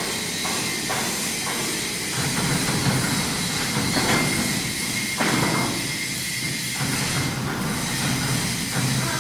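Steady running noise of factory machinery: a constant hiss over a low rumble, with a faint high whistle for a few seconds in the middle.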